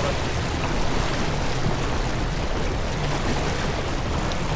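Steady rush of wind and water aboard a racing sailboat under way, with no distinct knocks or tones.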